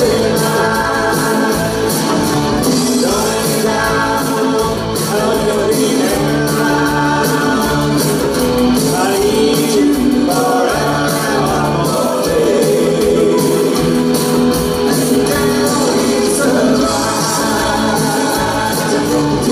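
Live pop band playing: a man singing lead over acoustic and electric guitars, keyboard and drums, with the reverberation of a large theatre hall.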